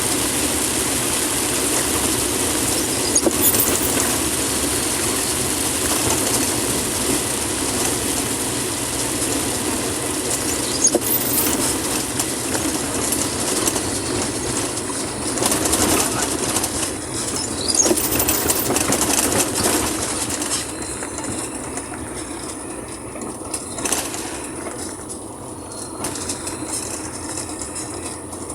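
A vehicle driving on a wet road in heavy rain: steady engine and road noise under a hiss of rain and water spray. The high hiss thins out about twenty seconds in.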